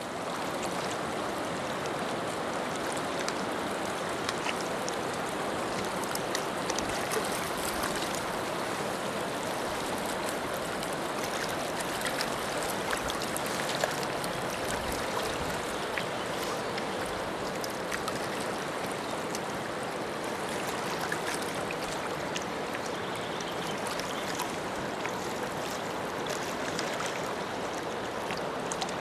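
River current running over rocks and through riffles: a steady rushing of water with scattered small splashes.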